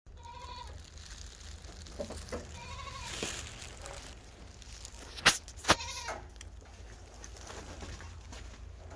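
A farm animal bleating in three short calls, each rising and falling. Two sharp clicks come close together a little past the middle and are the loudest sounds.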